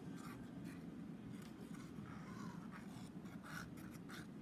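Faint, soft scratching and rubbing of a wet-glue applicator tip being spread over cardstock, in short irregular strokes.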